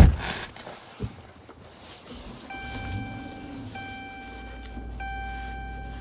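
A sharp thump, then a lighter knock about a second later. From halfway in, a car's electronic warning chime sounds as a steady electronic tone, repeating with brief gaps about every second, over a low rumble.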